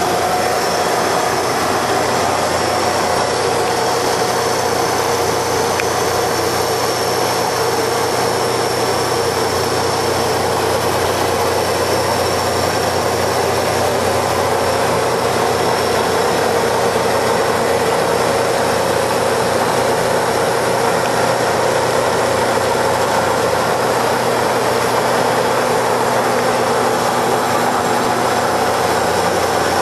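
Hydraulic copying lathe running steadily: a continuous machine hum with a few steady whining tones held throughout.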